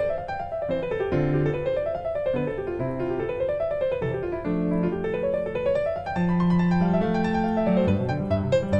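Background piano music: runs of notes rising and falling in repeated arcs over held bass notes.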